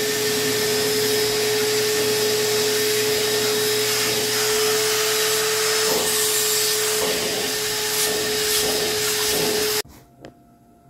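Vacuum cleaner running with a steady whine as its hose and crevice nozzle are worked along a sofa seat, sucking up dog hair, with a few small knocks of the nozzle. It cuts off suddenly near the end, leaving a faint steady tone of a distant tornado siren.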